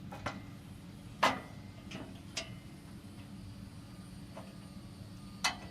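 Metal spacers and bolts clinking and knocking against a go-kart's steel frame as they are fitted: about six separate sharp knocks, the loudest about a second in, over a steady low hum.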